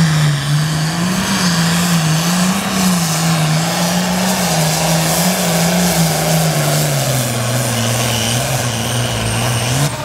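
International farm tractor's diesel engine running flat out while pulling a weight-transfer sled, its engine note wavering up and down and settling lower about seven seconds in. The sound drops off sharply at the end.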